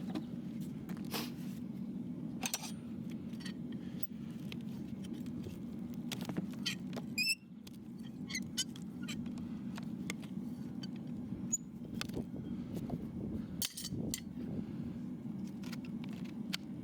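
Hoof-trimming tools working on a horse's hoof: scattered short scrapes and clicks over a steady low hum, with a brief squeak about seven seconds in.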